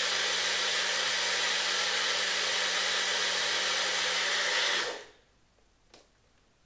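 Ninja personal blender running steadily, blending a spinach and cucumber drink, its motor cutting off sharply about five seconds in. A faint click follows about a second later as the cup comes off the base.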